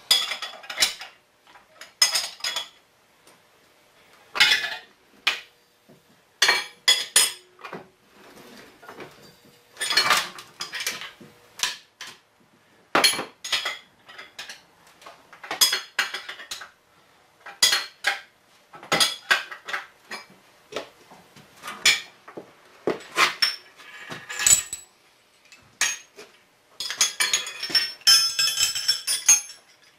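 Metal hand tools and a brass workpiece clinking and clanking against the drill press table in irregular short knocks, some ringing briefly, with a quicker run of clinks near the end.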